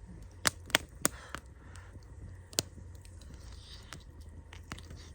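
Firewood crackling in the fire pit: a few sharp, irregular pops, three of them close together about half a second to a second in and another about two and a half seconds in.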